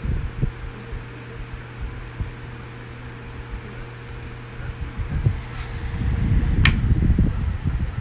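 Black and Decker box fan running with a steady motor hum. From about five seconds in, a low, uneven rumble grows as the fan's airflow buffets the microphone up close. A sharp click comes near the end, where the control knob is, and one of the hum tones stops.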